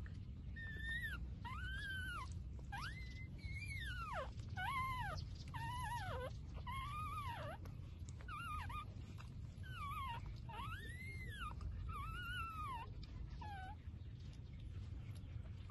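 A young puppy whining: a string of about a dozen high, arching cries, each about half a second long, over a low steady rumble. The cries stop about two seconds before the end.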